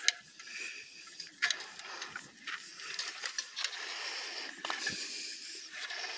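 Scattered clicks and rustling over a hiss: a person handling a barbed-wire fence by its wooden posts, then walking on dry grass and dirt.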